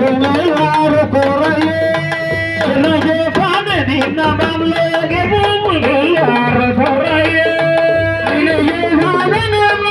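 Sabar hand drums played in a fast, dense rhythm, with voices singing over them.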